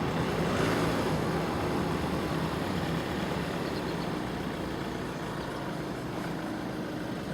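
Class 170 Turbostar diesel multiple unit running past and away over the level crossing, its engine and rail noise slowly fading.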